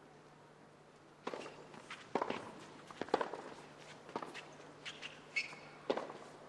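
Tennis rally on a hard court: sharp racket strikes and ball bounces about once a second, starting about a second in, with lighter shoe scuffs between them and a brief shoe squeak near the end.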